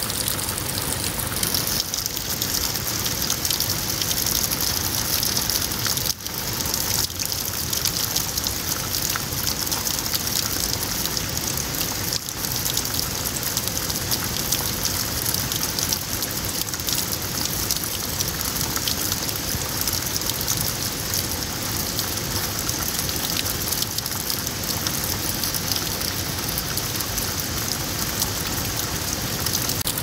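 Waterfall spray falling on wet rocks and shallow water running over pebbles: a steady, dense hiss of drops and splashing water.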